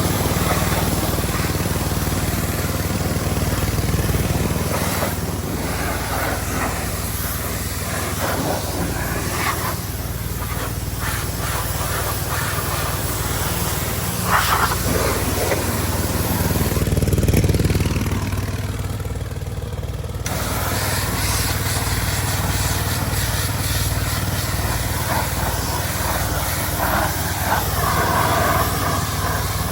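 Lawn mower's gas engine running steadily at idle, with changing hissy noise over it.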